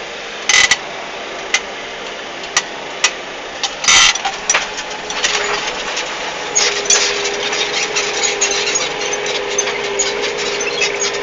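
CVX 160 tractor running steadily while ploughing, with irregular clicking and rattling that thickens from about six seconds in. Two short, loud noisy bursts come in the first few seconds.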